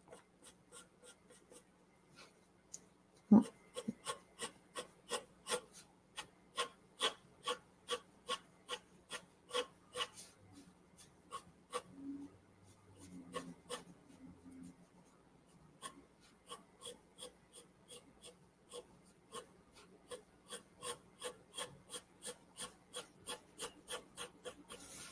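Graphite pencil shading on paper: short scratchy strokes, about two or three a second, with one sharper tick about three seconds in and a brief pause near the middle.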